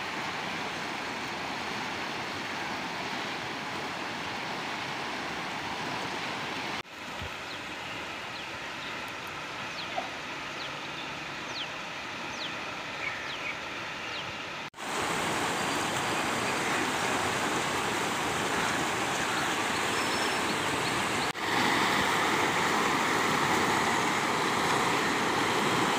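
Muddy floodwater rushing through a breach in a washed-out earthen road across a swollen river: a steady rushing noise that shifts in level a few times as the shots change.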